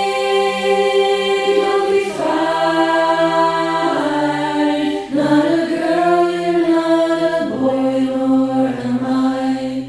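Background music: slow, sustained choir-like vocal chords with no beat, shifting to a new chord every second or two.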